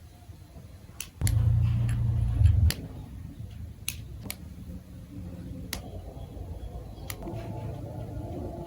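Plastic marble run building pieces being handled, with sharp clicks and taps spaced a second or so apart. A louder low rumble runs for about a second and a half near the start.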